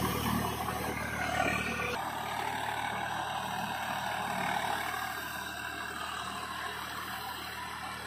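Swaraj 744 FE tractor's three-cylinder diesel engine running steadily under load as it drives a Shaktiman rotavator through flooded paddy mud. About two seconds in it drops to a quieter, more distant sound.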